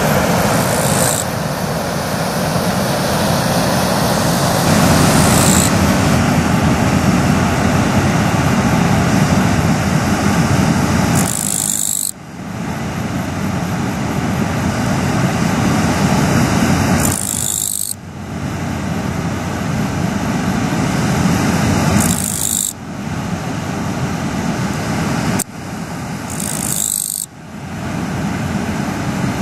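A steady rush of river water, with a katydid's high-pitched call of about a second repeating every five or six seconds, an insect that the recordist takes for a kirigirisu (Japanese katydid).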